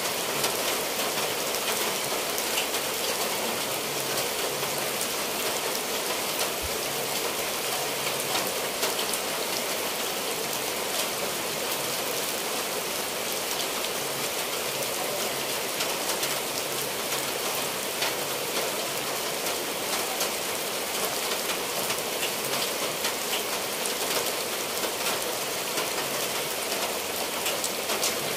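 Steady heavy rain falling on clay-tile roofs and leafy trees, with water running off the eaves and a dense patter of drops at an even level.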